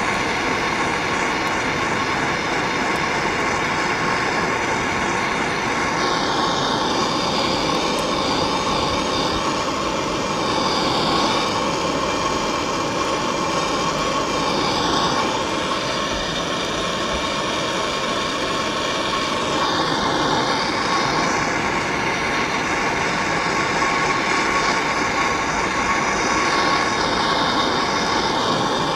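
Handheld gas torch burning with a steady hiss close by while it heats an old subframe cradle bushing to melt out its plastic. The tone shifts a little as the flame is moved around the bushing.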